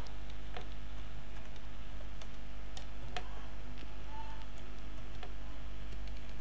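Typing on a computer keyboard: a string of unhurried, irregular keystrokes, about one every half second, over a steady low hum.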